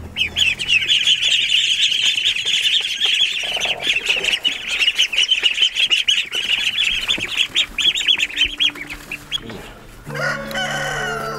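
A crowd of ducklings peeping constantly, many short high peeps overlapping. About ten seconds in the peeping gives way to music.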